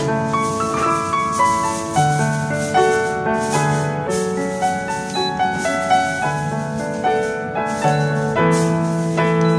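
Background instrumental music: a melody of held notes that move from one to the next every half second or so.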